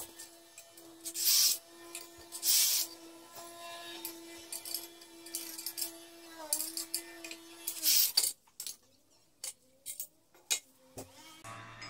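Cordless drill-driver running steadily as it backs out the screws of a small engine's recoil starter cover, a constant motor whine for most of the time, with several sharp clattering noises. The whine stops about eight seconds in, and a few fainter clicks follow.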